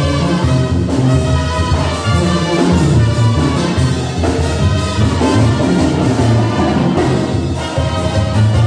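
Mexican banda playing live: a section of trumpets carrying the tune over sousaphone bass and drums, an instrumental passage with no singing.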